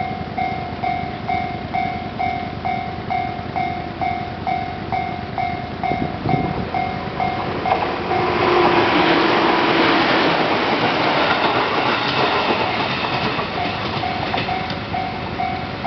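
Japanese level-crossing warning bell ringing in quick, even electronic strikes, about two or three a second. About halfway through, an electric multiple-unit train passes over the crossing, its loud rush drowning the bell for several seconds before the bell comes through again.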